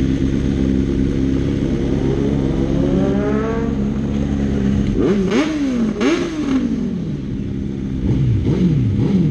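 Sport-bike engines with full-system exhausts running steadily. One engine's pitch climbs about two to three seconds in, then come two sharp throttle blips about five and six seconds in, and a few quicker blips near the end.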